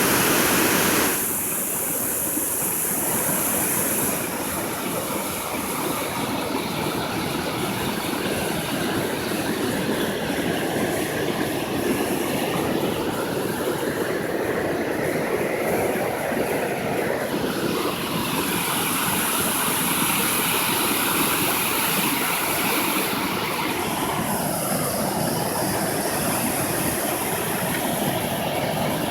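Rain-swollen, muddy water pouring over a dam, a steady rush of water that keeps going with no break.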